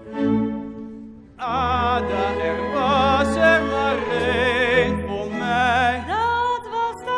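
Operatic singing with strong vibrato over a live orchestral accompaniment. The voice enters loud about a second and a half in, after a brief quieter passage.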